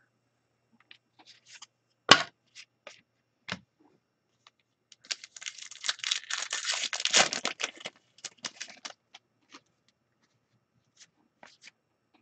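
Trading card pack wrapper being torn open and crinkled by hand: a dense crackling tear through the middle, with scattered sharp rustles and clicks of cards and wrapper being handled before and after, the loudest a snap about two seconds in.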